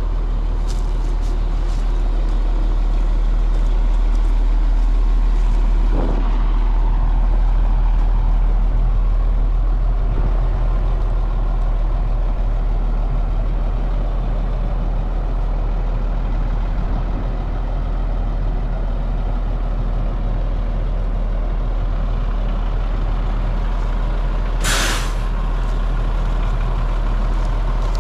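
Truck engine running steadily, with a short sharp hiss of air brakes about 25 seconds in.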